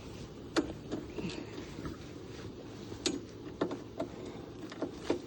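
Hand wrench working a bolt loose on a Yamaha Timberwolf 250 ATV's front bumper: a handful of irregular sharp metallic clicks and clanks, the loudest about half a second in.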